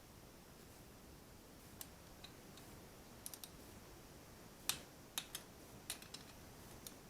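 About a dozen scattered, irregular sharp clicks and light taps of tools and parts being handled during engine work, the loudest about two-thirds of the way through, over faint background hiss.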